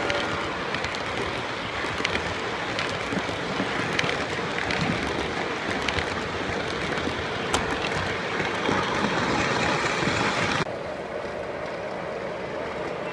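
Lionel O-gauge model passenger cars rolling past close by on three-rail track: a steady rumble and hiss of wheels with scattered sharp clicks over the rail joints. About ten and a half seconds in, the sound drops abruptly to a quieter, steadier rumble.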